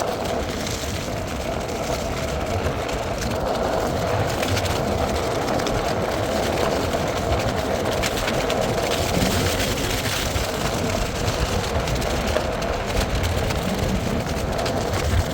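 Floatwheel ADV electric one-wheel board riding along: a steady hub-motor whine that wavers slightly in pitch over a low rolling rumble.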